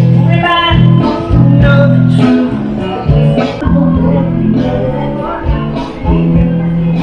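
Loud 70s/80s-style pop-rock song with guitar and singing, played over a fairground ride's sound system.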